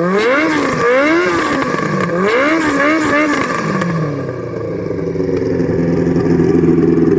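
Honda CBX 750's air-cooled inline-four, through an aftermarket 4-into-1 exhaust, revved in quick throttle blips, its pitch rising and falling about once a second. About four seconds in it drops back and settles to a steady idle.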